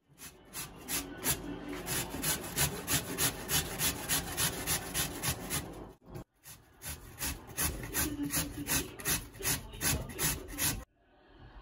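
Raw potato grated on a stainless steel box grater: even scraping strokes, about four a second, with a brief break about six seconds in, stopping shortly before the end.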